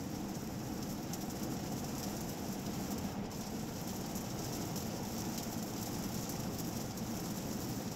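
Steady road noise inside the cabin of an Audi Q8 50 TDI while driving, an even low rumble with a faint hiss above it.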